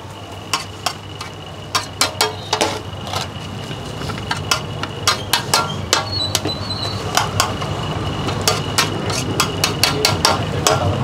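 Metal ladle knocking and scraping on a large tawa griddle as stir-fried noodles are portioned out onto plates: irregular sharp clanks, a few every second, over a steady low hum.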